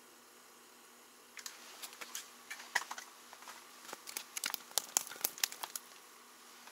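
Crinkling and rustling with a quick, irregular run of light sharp ticks and crackles, starting about a second and a half in and dying away near six seconds.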